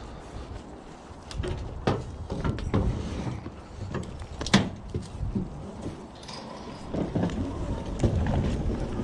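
Scrap metal being handled and loaded: a series of sharp knocks and clanks, the loudest about four and a half seconds in, over a low rumble of wind on the microphone.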